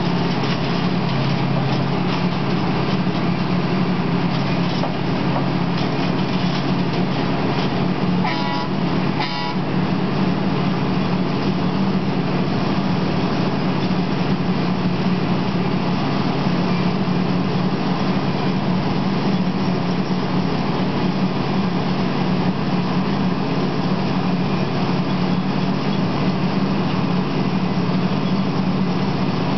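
Diesel engine of a railroad tie-replacement machine running steadily. About eight to nine seconds in comes a short two-part tone, like a horn toot.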